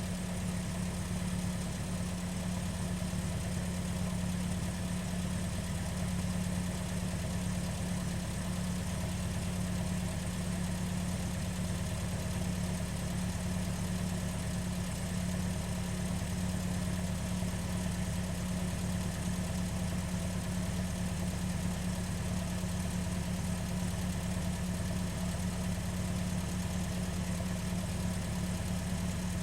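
Ford Fiesta engine idling steadily, with an even low hum that does not change in pitch or level.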